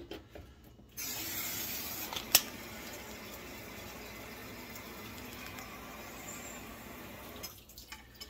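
Kitchen tap running water into a small watering can to refill it. The flow starts suddenly about a second in and is shut off near the end, with one sharp knock a little after it starts.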